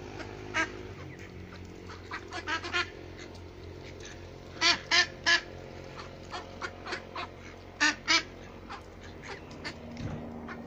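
A flock of domestic ducks quacking: scattered short quacks, with a louder run of three about halfway through and two more a few seconds later.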